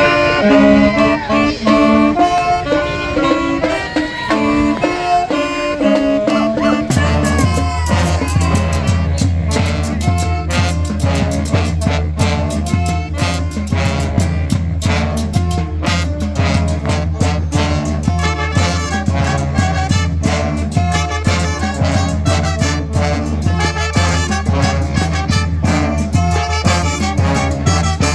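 Street band of brass and saxophones playing a swinging tune with drums. About seven seconds in, the sound changes abruptly to dense, busy drumming over a steady deep rumble, with the horns still playing.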